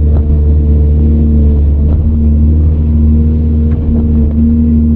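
Caterpillar 395 excavator's diesel engine running steadily under load, heard from inside the operator's cab: a heavy low drone with a steady whine above it.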